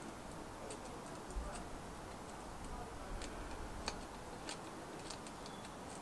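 Faint, irregular small clicks as a valve-core tool is twisted to unscrew the valve core from a mobility scooter's inner-tube valve.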